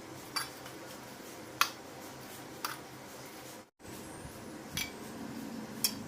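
Metal kitchen utensil clinking against a cooking pan five times, roughly a second apart, over a steady low hum.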